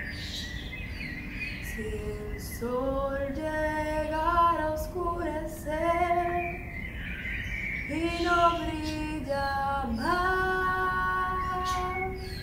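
A woman's voice sings a slow Spanish-language Christian song in long, held phrases.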